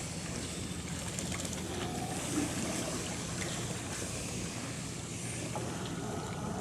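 Steady waterside ambience: wind noise on the microphone and water, over a low steady hum.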